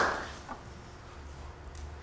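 Applause dying away in the first moment, then a quiet room with a steady low hum and a faint click about half a second in.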